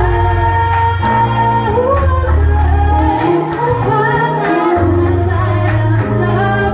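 Live band music: women singing into microphones over synthesizer keyboards and a deep bass. A little past the middle the deep bass drops out for about a second and a half, then comes back.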